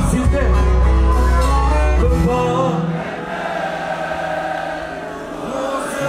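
Live band music with singing. The heavy bass drops out a little over two seconds in, leaving a quieter held sound.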